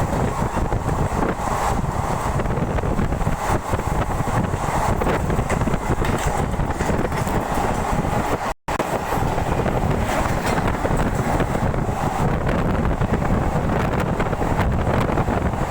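Passenger train running at speed, a steady heavy rumble with wind buffeting the microphone. The sound cuts out for an instant about halfway through.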